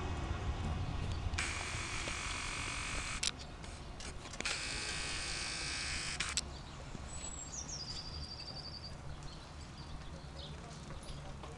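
Camera zoom motor whirring twice, each time for about two seconds, over faint street ambience.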